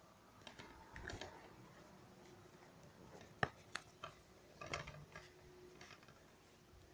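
Faint scattered clicks, taps and rustling of things being handled in the dark, with a sharper click about three and a half seconds in.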